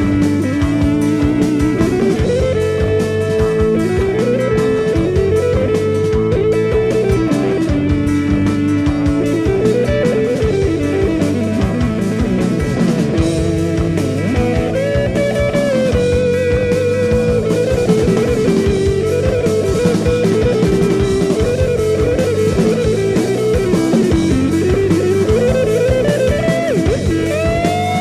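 1977 instrumental jazz-rock recording: electric guitar and drum kit, with a lead line of long held notes that bend up and down in pitch.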